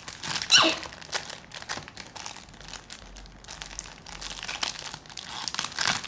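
Plastic packaging crinkling and crackling as it is squeezed and handled, in irregular bursts, the loudest about half a second in.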